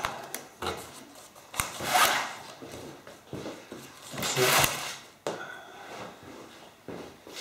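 Plastic packing straps dragged off a cardboard box, scraping as they slide over the cardboard, about two seconds in and again around four and a half seconds, with a sharp knock just before the first.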